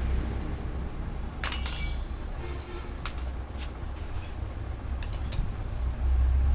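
Light metallic clinks of loose metal parts or tools being handled: a short cluster about a second and a half in, then single clinks spread over the next few seconds. A steady low rumble runs underneath.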